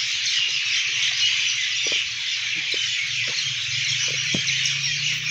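Steady rush of water pouring from a pipe into a small stone well tank.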